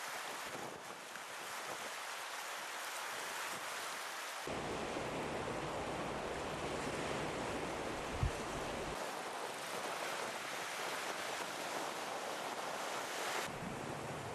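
Steady outdoor noise of wind and small waves washing on a stony shore. Wind buffeting the microphone adds a low rumble that comes and goes abruptly, and there is one brief knock about eight seconds in.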